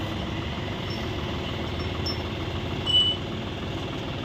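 John Deere 5042 tractor's diesel engine idling steadily. A brief high-pitched ring sounds about three seconds in.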